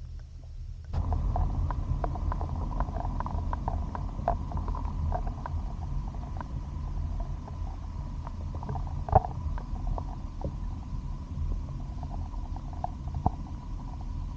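Muffled underwater sound of a shallow mountain stream: a steady low rumble of moving water with many small clicks and ticks and a faint steady tone. It comes up after a quieter first second.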